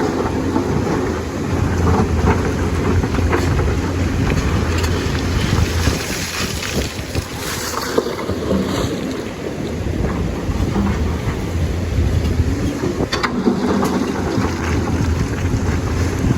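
Lonking excavator's diesel engine running steadily as the machine works, with a few sharp knocks and a rushing noise that swells about halfway through.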